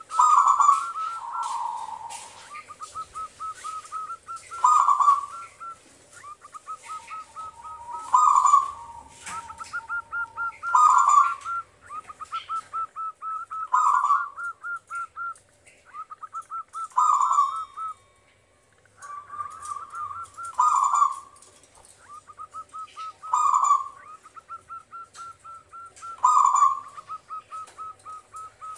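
Zebra dove (perkutut) singing its cooing song. Each phrase is a quick run of short staccato notes ending in a louder note that falls in pitch, and the phrase repeats about every three seconds.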